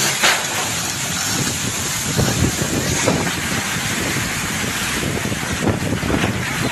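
Strong hurricane wind blowing hard in gusts and buffeting the microphone.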